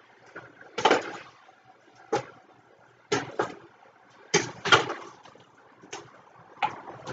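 A spoon stirring beef short ribs with red wine and mirepoix in a large stainless-steel stockpot: short wet sloshing strokes, about one a second, with the spoon scraping and knocking against the pot.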